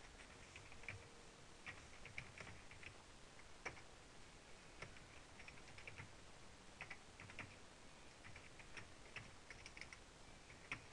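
Faint typing on a computer keyboard: irregular single keystrokes and short runs of keys.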